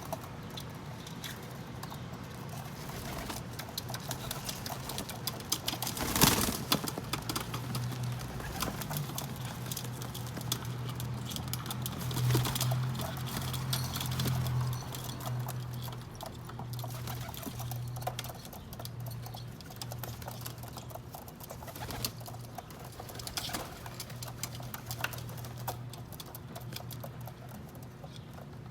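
Pigeons pecking at sunflower seeds, a busy patter of small taps and clicks, with one sharper tap about six seconds in. Low cooing sounds through the middle.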